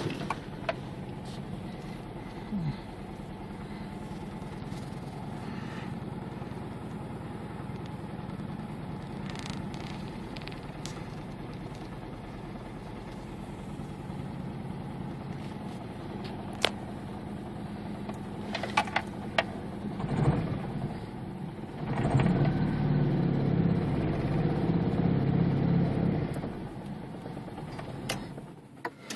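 1995 Infiniti G20's 2.0-litre four-cylinder engine idling roughly, with a few light clicks. The engine gets louder for about four seconds near the end, then drops back.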